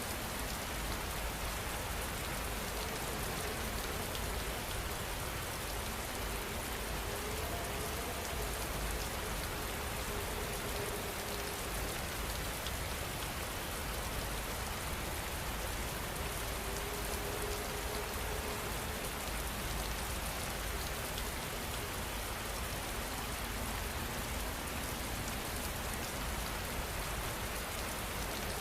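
Steady rain falling and pattering on a surface, an even, unbroken hiss of drops.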